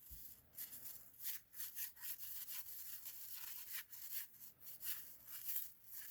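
Faint rubbing and swishing of 1990 Fleer basketball trading cards sliding against one another as a stack is flipped through by hand, in many short irregular strokes.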